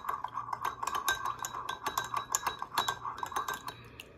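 Metal spoon stirring broth in a glass measuring cup: quick, steady clinks of the spoon against the glass that stop just before the end.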